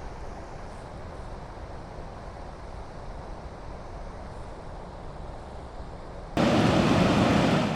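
Steady rushing of river water over rapids and falls swollen with spring meltwater. About six seconds in it cuts suddenly to a much louder, closer roar of falling water.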